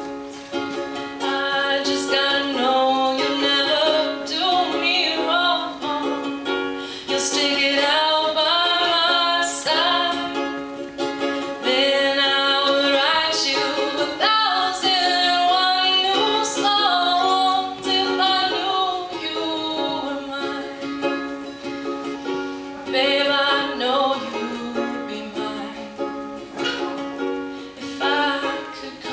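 Live ukulele song: a ukulele strummed steadily, with a woman singing a slow melody over it.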